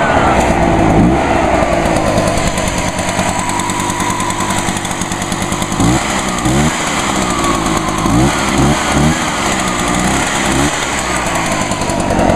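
Echo PB-500T backpack blower's two-stroke engine running freshly after a cold start. It runs steadily at first, then is revved in a run of quick throttle blips from about halfway through, the pitch rising and falling with each.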